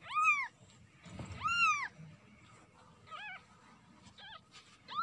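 Newborn kitten, eyes not yet open, mewing: two loud, high-pitched cries that rise and fall, then two fainter, shorter mews.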